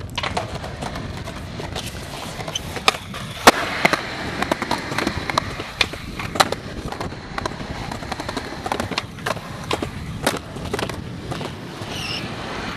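Skateboard wheels rolling on concrete and pavement, with a string of sharp clacks as tricks are popped and the board lands, the loudest about three and a half seconds in and again near six and a half seconds.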